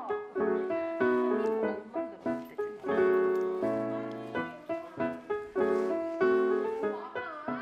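Background piano music: a gentle melody over chords, each note struck and fading.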